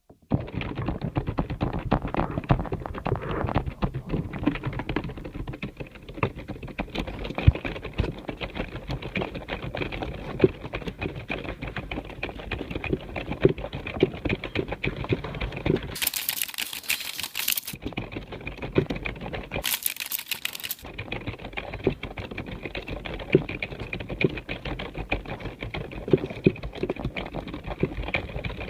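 Continuous fast typing on a computer keyboard: a dense, irregular stream of key clicks. Twice near the middle, for a second or two, the sound turns thin and hissy.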